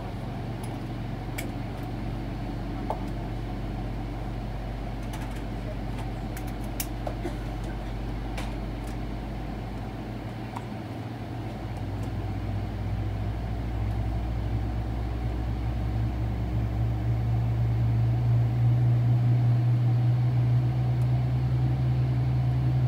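Steady low hum in the cabin of a Boeing 777-300ER on the ground, growing louder from about halfway through without changing pitch, with a few faint clicks.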